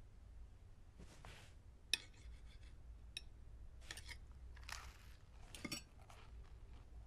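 Knife and fork clinking against a plate in a few scattered light clinks, the sharpest about two seconds in, over a faint low hum.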